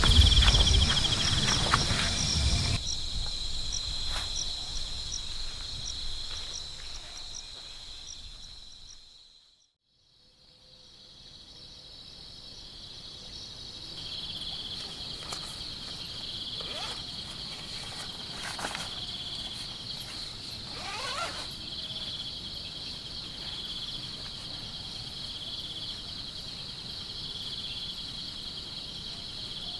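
Chorus of insects such as crickets: a steady high chirring with a trill repeating about every second and a half. A low rumble underneath stops a few seconds in, and the chorus fades out to silence about a third of the way through, then fades back in.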